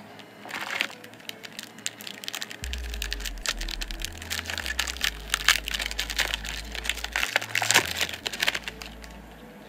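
Foil trading-card pack being crinkled and torn open by hand: a dense run of sharp crackles, loudest in the middle.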